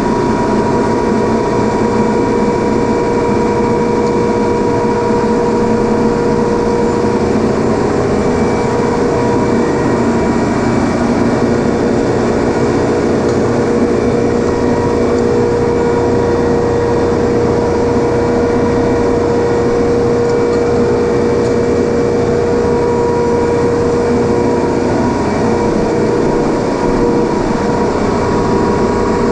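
Loud, steady drone of running machinery, with several steady hum tones over a dense noise that does not change.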